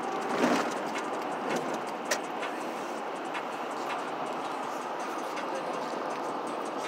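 Steady road and engine noise heard from inside a car moving at highway speed, with a couple of short sharp clicks about half a second and about two seconds in.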